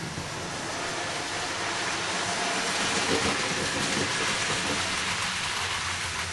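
Model train running on the layout's track: a steady rolling rumble of wheels on rail that swells about halfway through and then eases off.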